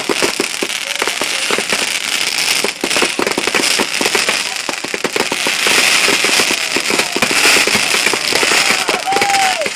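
Fireworks going off in a rapid, continuous barrage of crackling bangs, with a few short whistles that rise and fall in pitch, the clearest near the end.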